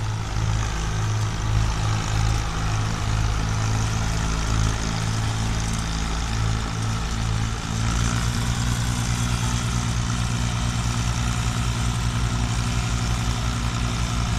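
Diesel tractor engines hauling a loaded trailer through a shallow riverbed, a steady low engine hum under load. The engine note wavers at first and settles into an even beat about eight seconds in.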